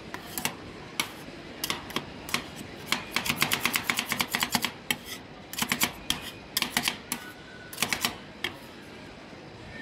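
Metal spatulas chopping and tapping on a frozen steel cold plate as they work a mound of ice cream base: scattered sharp clicks, then a fast run of taps about three seconds in, then short clusters of taps that stop about eight and a half seconds in.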